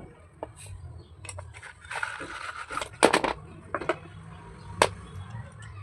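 Slate pencils being handled and cleaned: a rasping scrape, then a cluster of sharp clicks and taps as the pencils knock against each other.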